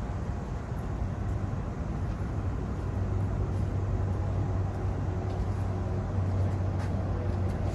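Mobile crane's diesel engine running during a heavy lift, a steady low drone that grows a little louder about three seconds in.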